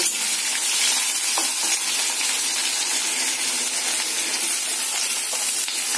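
Chopped onions sizzling in hot mustard oil in a kadhai, a steady frying hiss. They are at the start of being fried until dark brown.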